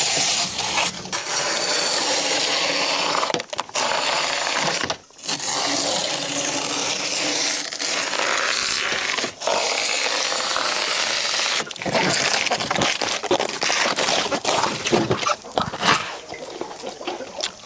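Cleaver and hands stripping the fibrous leaf sheaths off a banana-plant stem: long, even tearing and scraping strokes with short breaks between them, turning into shorter, irregular tearing sounds in the last few seconds.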